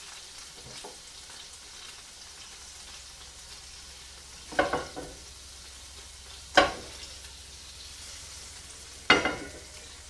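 Scallops sizzling steadily in hot olive oil with garlic, chili and lime juice in a non-stick frying pan, broken by three brief, louder clatters or flare-ups about two seconds apart, the last as the pan is handled.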